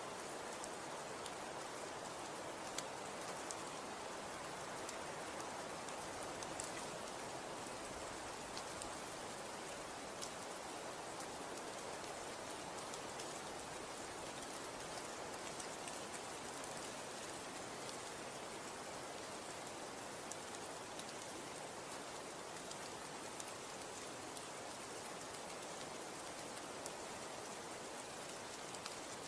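Falling snow hitting surfaces: a steady hiss with faint, scattered ticks.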